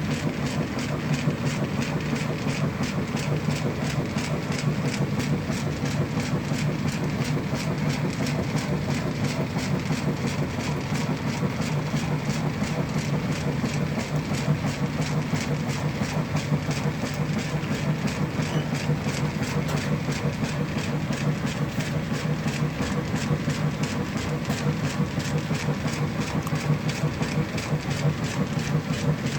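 Washing machine running with a large load of clothes and bed sheets: a steady motor hum with a rapid, even pulsing.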